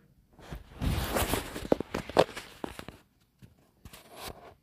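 Rustling with a quick run of sharp clicks and knocks for about two and a half seconds, then a shorter rustle near the end.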